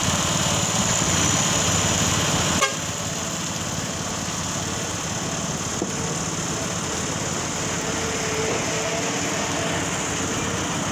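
Engines running steadily, with a sharp click about two and a half seconds in, after which the sound is a little quieter.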